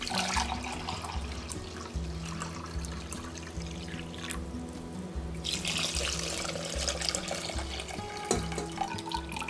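Vinegar being poured in two long streams of about four seconds each, with about a second's pause between them. In the second pour the vinegar runs from a glass measuring cup into a stainless steel pot over sugar. Background music with a steady bass line runs underneath.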